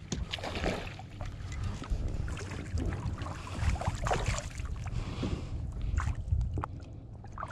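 Water splashing as a hooked spotted bass thrashes at the surface beside the boat and is lifted aboard, over water lapping against the hull and a low wind rumble on the microphone.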